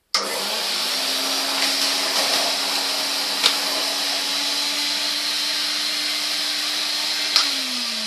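Hoover Constellation floating vacuum cleaner switched on and running with a steady motor whine and rushing air, with a couple of sharp clicks as debris is drawn in. Near the end, after a click, the motor tone slides down in pitch as it winds down.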